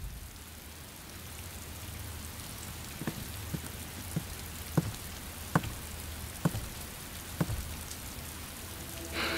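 Steady rain falling, with single water drops dripping slowly and irregularly, about one a second, from about three seconds in.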